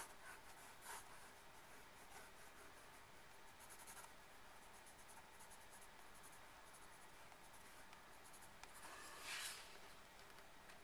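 Graphite pencil scratching on paper in quick, short sketching strokes, faint throughout, with a louder, longer stroke about nine seconds in.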